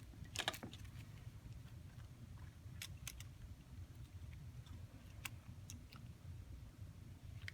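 A few faint, sharp clicks and taps of small phone parts being handled and pressed into place during reassembly, over a low steady hum.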